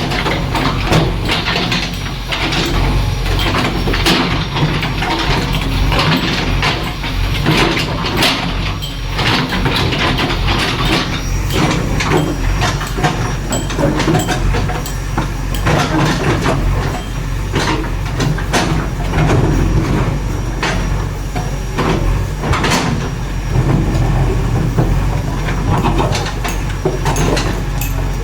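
JCB 3DX backhoe loader's diesel engine running steadily under working load, with frequent irregular knocks and clatters on top.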